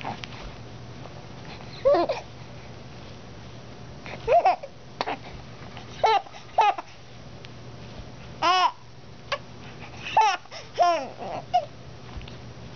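Five-month-old baby babbling and squealing in short, high-pitched bursts, about eight of them, spaced a second or two apart.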